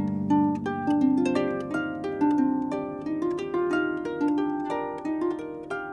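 Solo harp playing an instrumental passage: a quick, flowing run of plucked notes, each ringing on as the next is struck.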